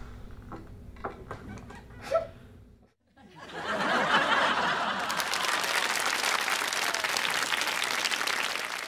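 Audience applause, breaking out about three seconds in and building quickly to a steady, dense clatter of many hands. Before it there are only faint room noise, a few light knocks and one brief sharp sound.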